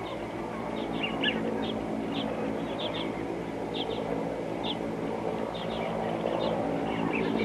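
Steady low engine drone with short, high bird chirps repeating about once or twice a second over it.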